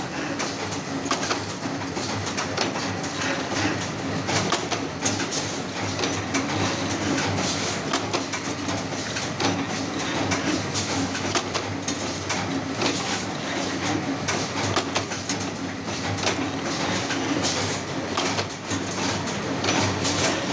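Spring-coiling machine running, forming mousetrap torsion springs from wire. It makes a steady mechanical clatter of dense, fast clicks.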